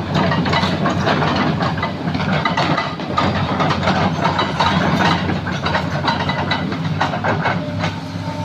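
Heavy diesel earthmoving machinery running steadily, with frequent irregular knocks and clatter over the engine drone.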